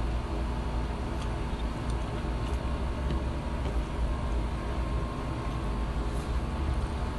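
Steady low machine hum with a few even tones running through it, with a few faint clicks from eating rice and meat by hand.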